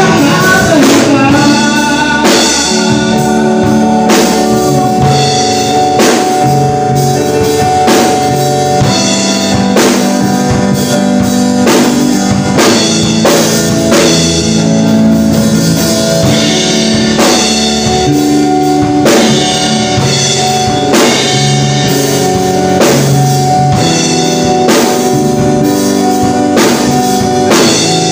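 Live band playing an instrumental stretch of a song: drum kit keeping a steady beat, electric bass and electronic keyboard holding sustained chords. A sung note trails off in the first second or so.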